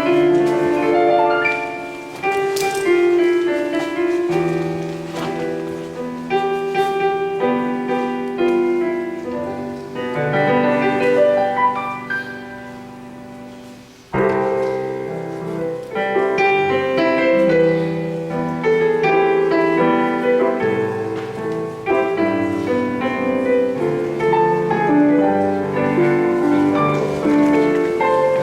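Instrumental music with a piano-like keyboard playing a melody over chords. The music fades down about twelve seconds in, and a new phrase starts sharply about two seconds later.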